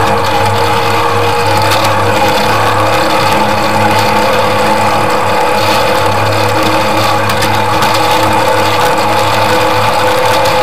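Miniature ride-on garden railway train running along its track: a steady mechanical hum from the locomotive's drive, with occasional sharp clicks.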